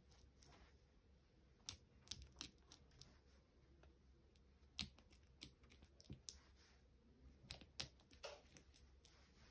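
Faint, irregular soft taps and clicks of fingertips pressing grooves into soft bread dough on a floured wooden table.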